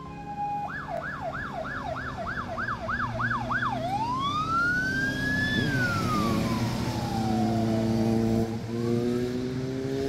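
Fire engine's electronic siren sounding a fast yelp, then switching to one long wail that rises and falls, over the truck's running engine. Near the end an engine revs up, rising in pitch.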